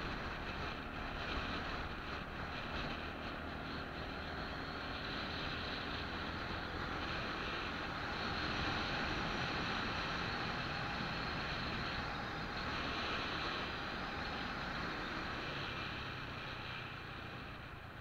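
Steady wind and road noise from a moving vehicle, with a low engine hum underneath, a little louder about halfway through.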